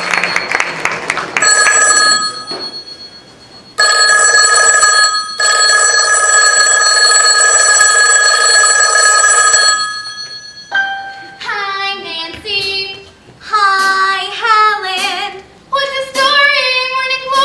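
Telephone bell ringing loudly: one ring of about two seconds, a pause, then a long ring of about six seconds with a brief break. From about eleven seconds in, a girl sings in short phrases.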